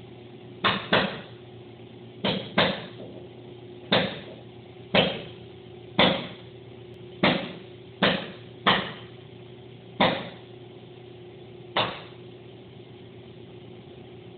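Automatic car wash machinery running with a steady motor hum, broken by about a dozen sharp knocks at uneven intervals of roughly a second, some in quick pairs.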